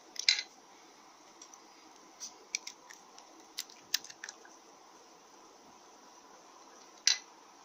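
Small metal bolts clicking and clinking against the bearing retainer and cast iron transmission case as they are fitted by hand. It is a scatter of sharp single clicks, the loudest just after the start and again near the end.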